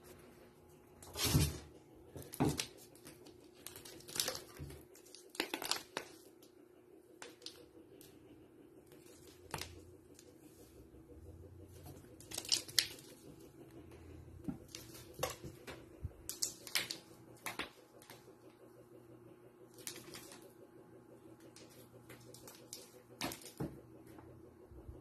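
Kittens' claws scratching and picking at a foam wall panel and scuffling on a concrete floor: a dozen or so short, irregular scratchy crackles over a faint steady hum.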